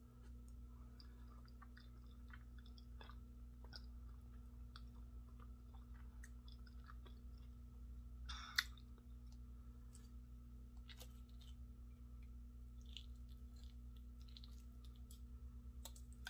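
Faint close-miked chewing and small mouth clicks of a person eating soft grits and eggs, with one sharper click about eight and a half seconds in, over a low steady hum.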